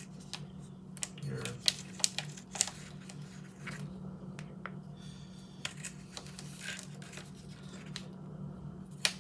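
A plastic bag of lentils and a pair of scissors being handled one-handed: scattered sharp clicks and crinkles of plastic packaging. A steady low hum runs underneath.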